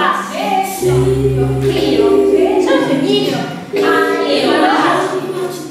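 Music of several voices singing together, choir-like, with a low held bass note under them from about one second in for about two seconds.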